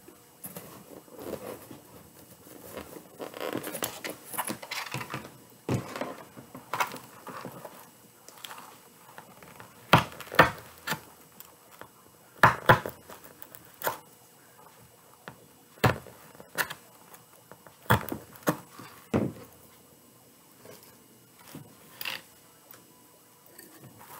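Hands working burlap ruffles and deco mesh on a wreath: rustling and crinkling of the stiff fabric, with a scattering of sharp knocks and taps against the work surface from the middle of the stretch on.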